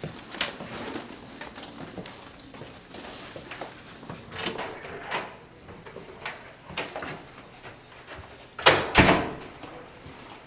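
Scattered clicks and knocks, with two loud thumps close together near the end.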